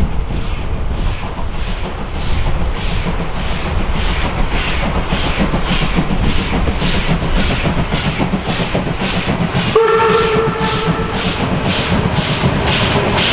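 German 2-10-0 steam locomotive working hard as it approaches, its exhaust chuffing at about two beats a second over the rumble of the train. It gives one whistle blast, about a second long, around ten seconds in.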